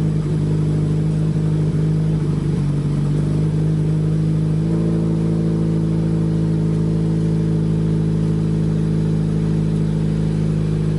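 2016 Subaru WRX's turbocharged FA20DIT flat-four idling on a cold start, heard through Perrin headers, a Grimmspeed catted J-pipe and a Tomei titanium catback exhaust. The idle is steady, still at fast cold idle before warming up, with a slight change in tone about halfway through.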